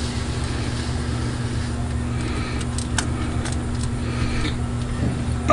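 A steady low mechanical hum with one held tone underneath, and a few light metal clicks and clinks, about three seconds in, as carburetor linkage parts are handled and fitted.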